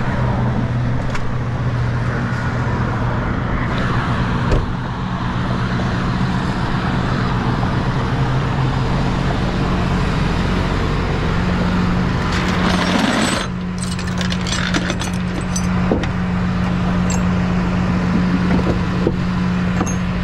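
Tow truck engine idling steadily with a low hum, over road noise. In the last several seconds there are light metallic clinks and rattles from gear being handled at the truck's diamond-plate toolbox.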